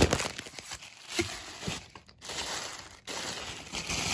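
Tissue paper rustling and crinkling as a tissue-wrapped plush toy is handled, in uneven rustles with a short pause about two seconds in.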